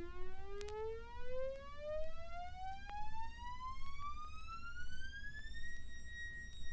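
Quiet electronic tone with overtones, rising slowly and steadily in pitch for several seconds and then holding a high note near the end, over a low hum.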